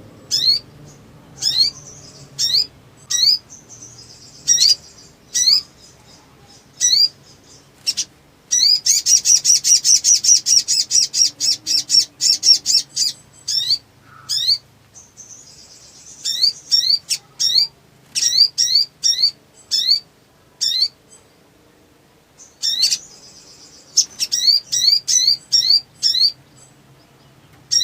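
A sogon (sogok ontong, the little spiderhunter) calling excitedly: a run of short, sharp upslurred chirps, about two a second, broken about a third of the way in by a long rapid-fire trill of fast-repeated notes, with shorter trilled runs later on.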